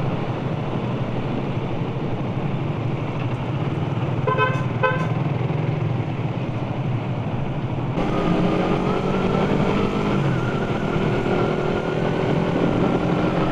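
Riding noise from a Suzuki Satria F150 motorcycle: the single-cylinder engine running under a steady rush of wind and road noise. Two short horn toots come about four and a half seconds in. From about eight seconds the engine's hum comes through more clearly and holds steady.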